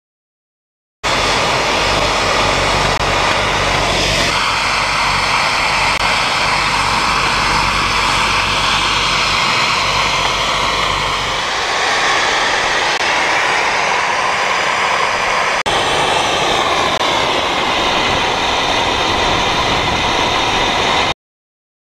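Snowmaking guns running: a loud, steady, jet-like hiss of compressed air and water spraying from the nozzles. It starts about a second in and cuts off suddenly near the end, with small shifts in tone a few seconds in and about two-thirds of the way through.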